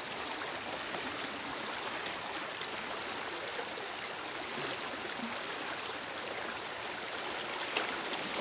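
Shallow rocky stream rushing steadily over stones. A short splash comes near the end.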